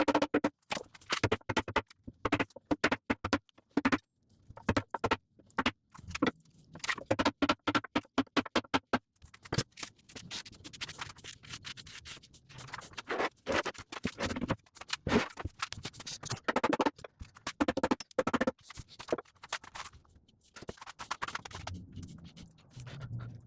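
Background music with a fast, busy percussive beat.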